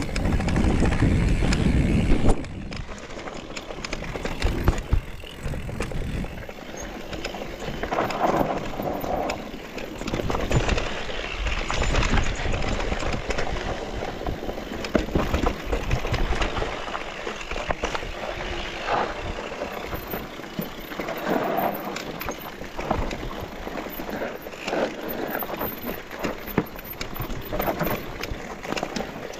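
Mountain bike ridden along a dirt forest trail: tyres rolling over dirt and stones, with the bike clattering over bumps. A heavy low rumble of wind on the microphone in the first two seconds.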